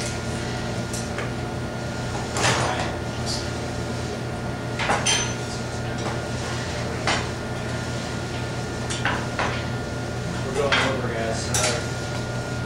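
Dishes, pans and utensils being handled on a kitchen counter: about half a dozen separate clinks and clatters a second or two apart, over a steady low hum.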